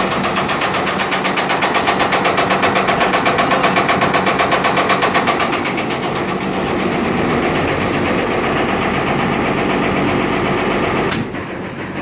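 Marley cooling tower's right-angle fan gearbox (Geareducer), driven by a 40 horsepower motor, running with a fast, even rattling knock of about seven strokes a second. The knock is strongest in the first half, then settles into steadier running, with one sharp click near the end. This is the noise of a faulty gearbox whose cause the technician does not know.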